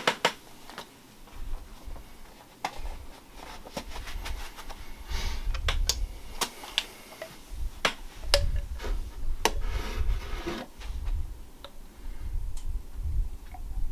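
Scattered light clicks and knocks, with intermittent low thuds, from handling a glass measuring cup of melted soft plastic and a clamped aluminum mold on a desk.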